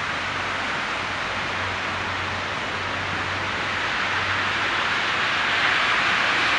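Steady hiss of traffic on a snowy, slushy city street, with a low hum underneath. It swells near the end as a vehicle draws closer.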